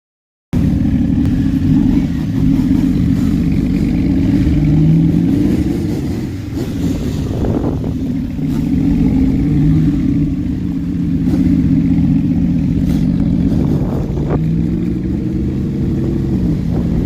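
Loud motor-vehicle engine and exhaust running under load, its pitch rising and falling several times as it revs up and eases off.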